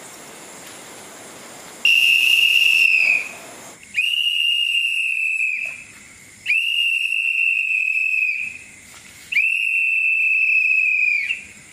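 A night watchman's whistle blown in four long, steady blasts, each lasting a second and a half to two seconds and sagging slightly in pitch as it ends: the guard's patrol signal on his night round.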